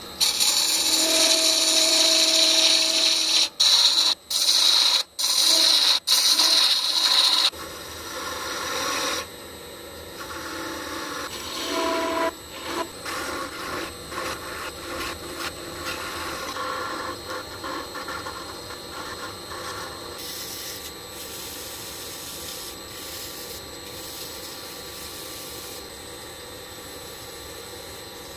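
Woodworking tools cutting a maple block vacuum-impregnated with resin. For the first several seconds there is loud, hissing cutting noise in short takes that cut off abruptly. After that come quieter, irregular scraping and rubbing sounds.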